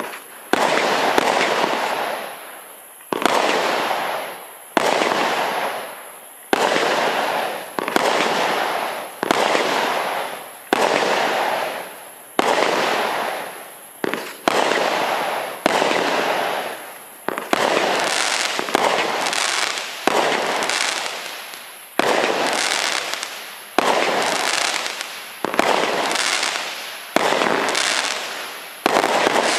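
Cube Fireworks' Pharaoh's Tomb 42-shot barrage cake firing shot after shot, about one every one and a half seconds, each a sharp bang followed by a fading crackle. The shots come closer together and overlap in the second half.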